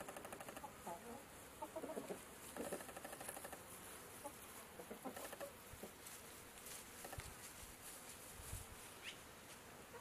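Chickens clucking faintly now and then: short, soft clucks scattered through, with a brief high rising chirp near the end.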